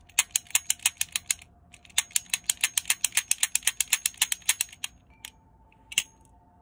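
Toy cap gun's hammer clicking fast as the double-action trigger is pulled over and over, about seven clicks a second in two runs, then two single clicks near the end. The caps are not going off: a cap is stuck in the gun.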